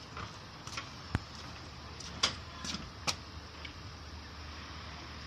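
Steady low hum of outdoor background noise, broken by a few short, sharp knocks and clicks; the loudest comes just after two seconds in.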